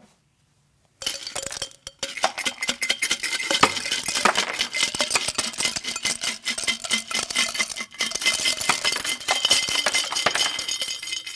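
Ice pouring out of a vacuum flask into a glass beaker: a dense, continuous clatter of ice pieces clinking against the glass, starting about a second in.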